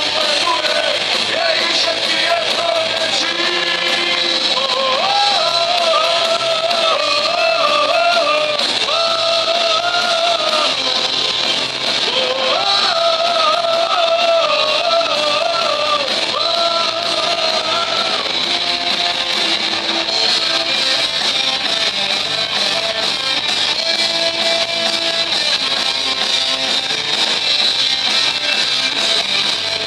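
Live rock band playing: sung vocals over electric guitars and drums. The singing stops about two-thirds of the way through and the guitars and drums play on.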